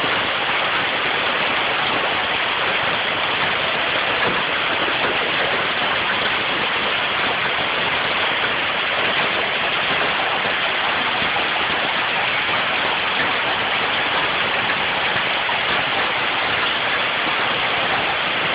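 Hail and rain falling hard, a steady dense hiss of countless impacts that never lets up.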